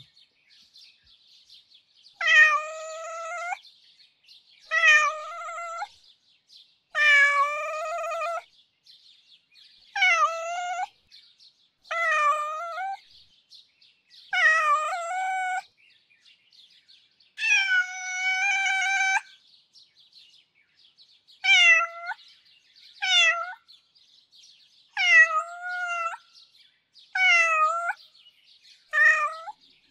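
Ginger cat meowing in a begging, whining way: a run of long, drawn-out meows a couple of seconds apart that turn into cries, then five shorter meows near the end.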